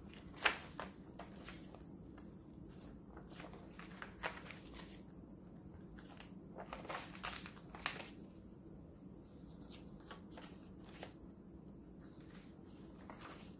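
Paper pages of a handmade junk journal made from a vintage Little Golden Book being turned by hand: scattered faint rustles and flicks, the sharpest about half a second in and a cluster around seven to eight seconds in.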